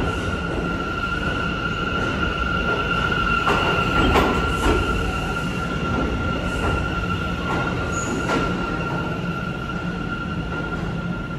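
R179 subway train pulling out of the station and receding down the tunnel: a steady rumble with a few wheel clacks over rail joints, loudest in the middle, under a constant high-pitched squeal from the wheels on the rails. It eases slightly as the train moves away.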